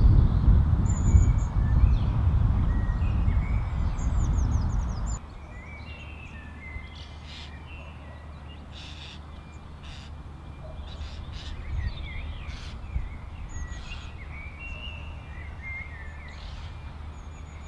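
Wild birds chirping and calling, many short high notes and quick glides. For about the first five seconds a loud low rumbling noise lies under them, then it cuts off abruptly, leaving the birdsong over a quiet background hum.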